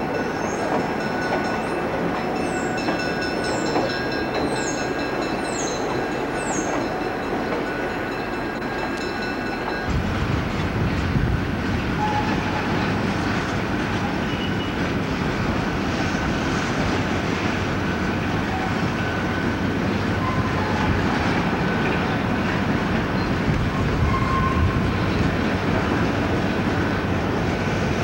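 Diesel freight trains passing close by. First a single diesel locomotive runs past with a steady high whine over its engine. After a cut about ten seconds in, Union Pacific diesel locomotives pull covered hopper cars past, louder and deeper, with wheels clattering on the rails.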